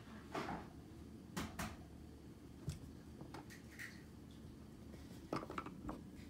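A kitten playing by itself: scattered faint light taps, clicks and scuffs of a small object being batted about, some in quick clusters, the busiest cluster near the end.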